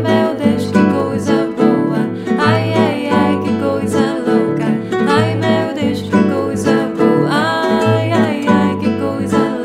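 Bossa nova played on two nylon-string classical guitars: a rhythmic bass-and-chord accompaniment under a picked melody, with a wordless vocal line over it.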